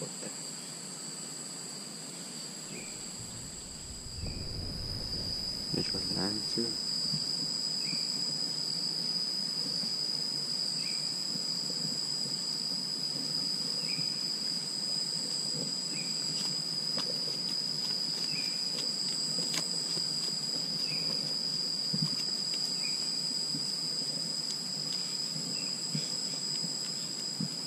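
Steady insect chorus singing on two unbroken high tones, one growing louder about four seconds in, with a faint short chirp every second or two.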